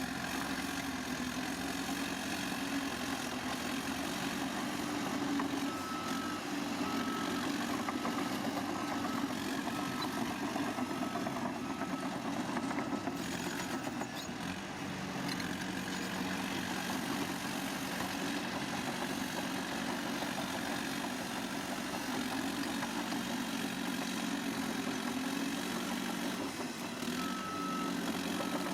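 A diesel engine of heavy earthmoving machinery running steadily. Over it, a reversing alarm beeps about once a second, for several seconds a fifth of the way in and again near the end.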